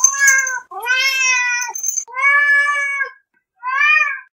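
A domestic cat meowing four times in a row, drawn-out meows with short silent gaps; the second and third are the longest, the last is short and rises then falls.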